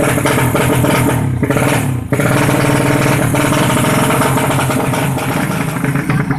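Tuned 135cc racing motorcycle engine running loudly at high revs. The revs sag briefly about one to two seconds in, then pick up again sharply.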